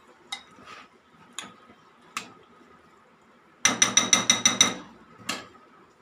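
A metal spoon clinking a few times as it stirs chicken in a glass bowl, then tapped rapidly against the dish about seven times in roughly a second, each tap ringing, with one more clink shortly after.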